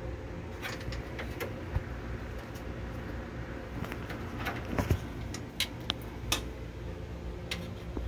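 A steady low mechanical hum with scattered sharp clicks and light taps, the loudest a cluster near the middle.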